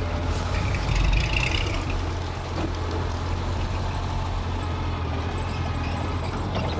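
Mitsubishi G2 bulldozer's diesel engine running steadily with a low drone, with a brief higher squeal about a second in.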